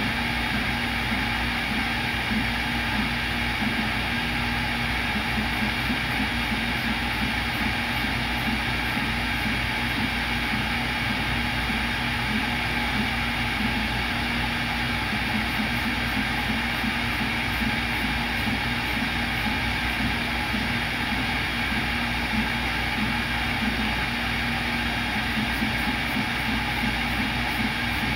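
CNC router spindle running at high speed, drilling holes in a copper-clad circuit board: a steady high whine over constant machine noise, with a low hum that cuts in and out.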